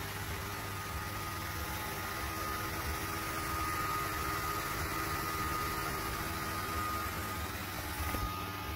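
Sculpfun S30 Ultra 2W diode laser engraver running as it engraves plywood: a steady mechanical hum with a thin, high whine held on one pitch. The sound shifts slightly near the end.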